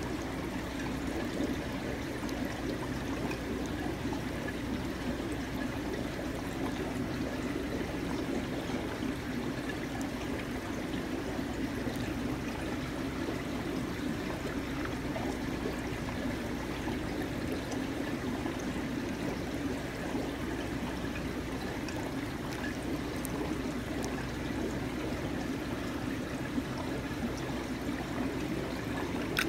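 Aquarium water trickling and running steadily, over a low steady hum.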